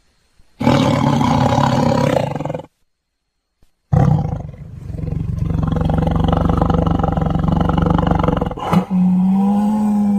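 Tiger's deep, rumbling snore-like calls. A call of about two seconds is followed by a second of silence, then a long call of about five seconds. That call breaks off briefly near the end and resumes as a steadier, more even-pitched tone.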